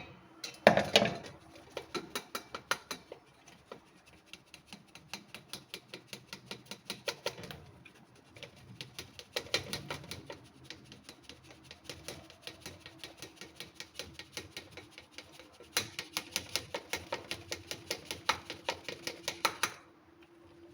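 Rice flour being sifted through a sieve: rapid, even tapping, about five or six taps a second, in several runs with short pauses, with one louder knock about a second in.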